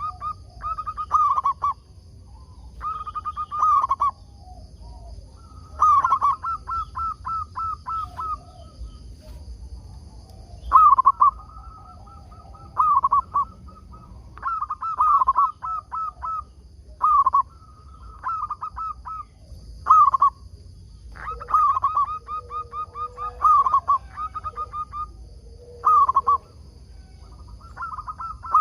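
Zebra dove (perkutut) cooing: about a dozen phrases, each a second or two of quick, clipped repeated notes, one every couple of seconds. A steady high-pitched whine runs under it.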